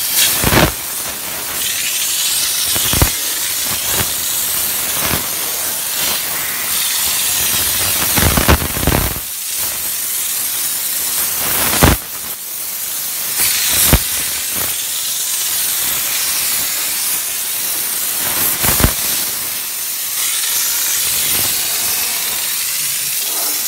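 The steam gun of a 12-bar LPG-fired steam car washer blowing a continuous jet of steam: a steady hiss, broken by about eight or nine short sharp pops.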